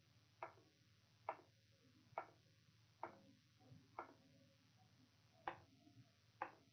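Near silence with faint short ticks, about one a second.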